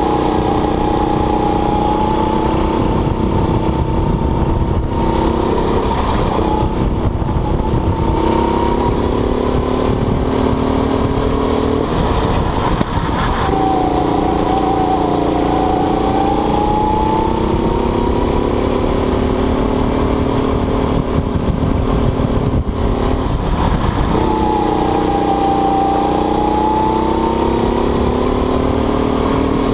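Go-kart engine heard onboard at racing speed, its pitch climbing slowly as the kart accelerates, then dropping as it slows for a corner about a third of the way in and again near the end, before climbing once more. A steady low rumble runs under it.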